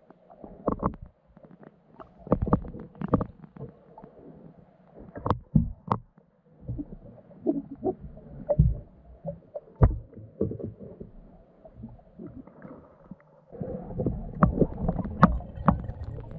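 Underwater sound picked up by a GoPro in its waterproof housing strapped to a swimming turtle's shell: irregular muffled knocks and thumps with a few sharper clicks. A denser, continuous rumbling noise sets in near the end.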